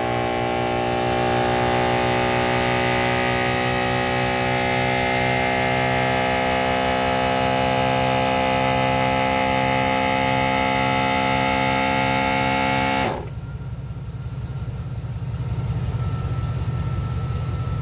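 MaxiTrac 12-volt portable air compressor running steadily to build the tank's pressure back up after the air impact wrench has drawn it down, then shutting off abruptly about thirteen seconds in. A low steady hum continues underneath.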